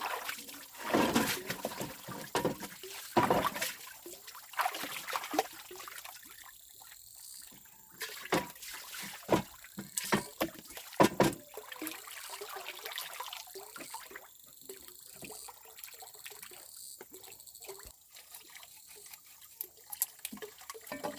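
Water being poured and splashed in irregular bursts, with sloshing and small clatters between.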